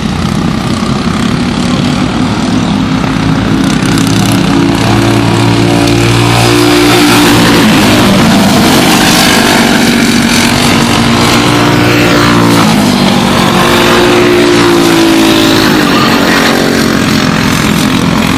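Several Briggs & Stratton Animal four-stroke racing kart engines running at speed, their pitch rising and falling as they brake and accelerate through the corners. The sound grows louder a few seconds in.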